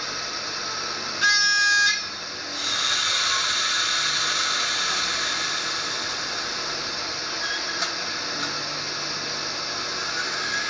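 ESU sound decoder in a Roco model of an ÖBB 1014 electric locomotive, heard through its small onboard speaker. It gives a short horn blast about a second in, then a steady hiss of the locomotive's running sound from about two and a half seconds on, with two faint clicks near the end.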